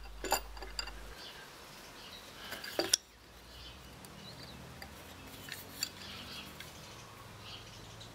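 Faint metallic clinks and light knocks as a handscrew clamp's steel threaded rod and washer are handled against its hardwood jaws. The loudest little cluster of clinks comes near three seconds in, after which only a few soft clicks remain.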